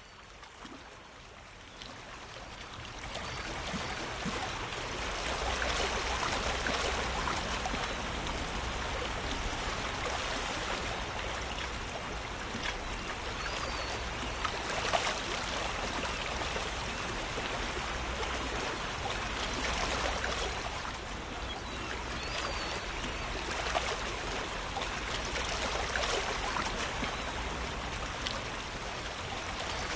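Running water like a flowing stream, a steady rushing and trickling that fades in over the first few seconds and then holds.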